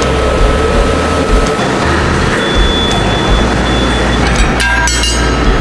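Steady workshop machinery noise: a low drone with a thin, steady whine over it and a brief clatter near the end.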